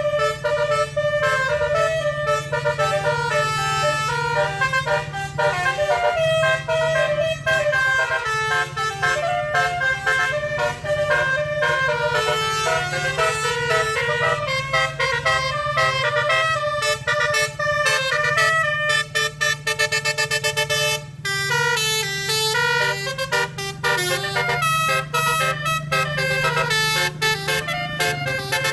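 Telolet multi-tone bus horn playing a fast melody of rapidly changing notes, with a quick trill about two-thirds of the way through, over a steady low hum.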